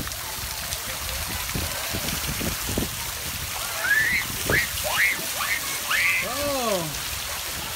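Steady rush and splash of water running over a pool water-play structure and pouring off the end of a slide into shallow water. About four seconds in, a child's high voice calls out a few times in rising and falling cries.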